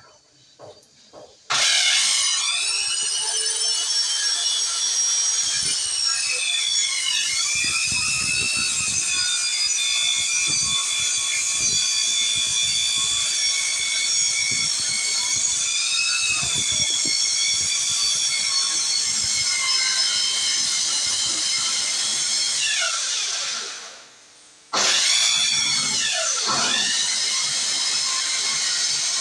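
A corded handheld power tool starts up and runs with a loud high whine, its pitch dipping twice as it takes load. About 23 seconds in it winds down with a falling whine and stops, then starts again a second later.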